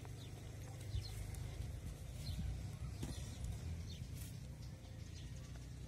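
Faint crumbling and scraping of potting soil as gloved hands squeeze a terracotta pot and work an orchid's root ball loose, with small scattered ticks over a low steady rumble.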